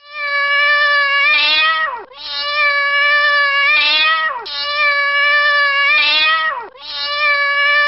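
A domestic cat meowing four times in a row, each a long drawn-out meow of about two seconds that holds its pitch and then drops at the end.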